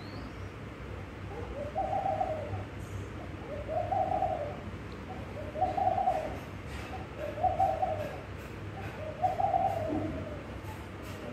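A dove cooing: five soft single coos, each rising and falling in pitch, about one every two seconds.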